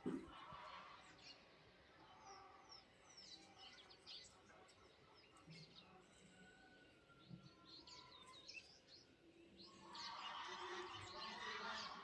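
Small birds chirping: many short, quick calls, growing into a dense chatter about ten seconds in.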